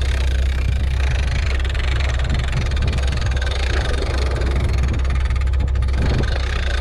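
Fishing charter boat's engine running with a steady low drone, mixed with broad water and wind noise.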